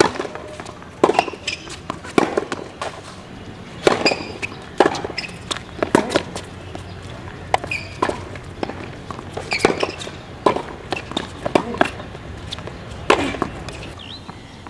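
Tennis ball struck by racquets and bouncing on a hard court during a rally, a sharp pop about once a second, opening with a serve.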